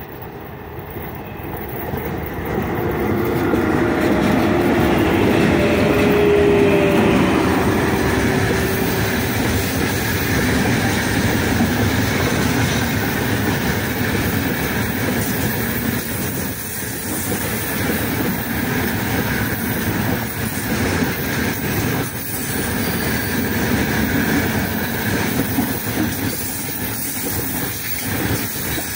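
A freight train with a 3ES5K 'Ermak' electric locomotive passing at speed. It grows louder to a peak about five seconds in, with a brief slightly falling tone as the locomotive goes by. Then comes the steady rumble and clickety-clack of loaded open-top freight wagons rolling past.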